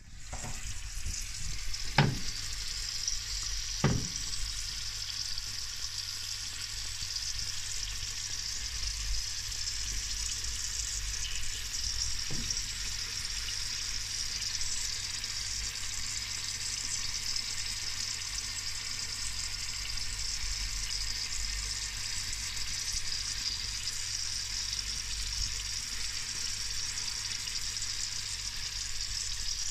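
Sausages sizzling in their own fat on a metal baking tray in a hot toaster oven: a steady hiss, with two sharp knocks about two and four seconds in.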